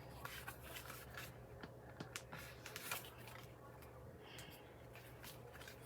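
Faint rustling and light clicks of paper pieces being handled, folded over and nudged into place, over a low steady hum.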